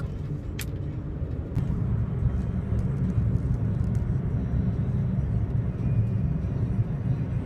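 Steady low rumble of a moving car's engine and tyres on the road, heard from inside the cabin, getting a little louder about one and a half seconds in, with a single light click near the start.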